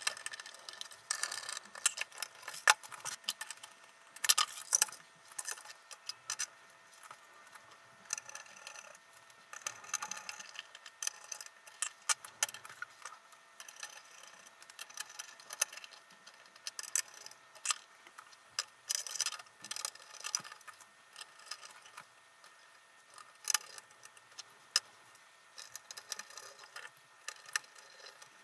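Irregular metallic clicks and clinks of screwdrivers and M4 screws being driven into a thin metal mounting panel as components are screwed down to it.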